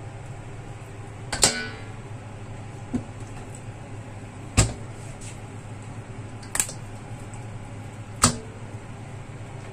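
A series of sharp knocks, four loud and one fainter, spaced about one and a half to two seconds apart, over a steady low hum.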